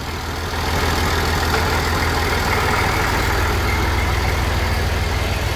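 Massey Ferguson 240 tractor's three-cylinder diesel engine running steadily at low revs as the tractor creeps forward under way, getting louder about half a second in.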